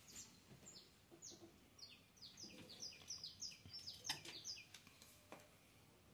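Faint bird chirping: a quick run of short chirps, each falling in pitch, busiest between about two and four and a half seconds in, with a couple of light clicks among them.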